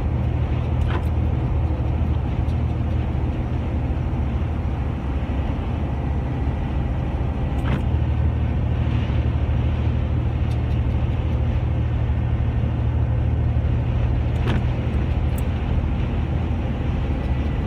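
Steady low engine and tyre noise inside a vehicle's cabin at highway speed on a wet road. A brief click comes three times, about every seven seconds, as the windshield wiper sweeps.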